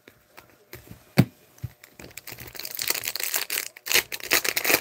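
Foil wrapper of a hockey card pack being torn open and crinkled by hand: a single sharp crack about a second in, then dense crinkling and tearing through the second half.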